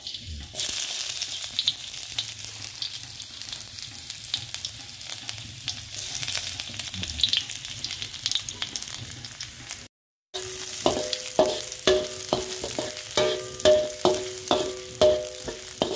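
Sliced shallots and garlic sizzling in hot oil in a wok. About two-thirds of the way in, after a brief silence, a metal spatula starts scraping and knocking against the wok two or three times a second, and each stroke makes the wok ring.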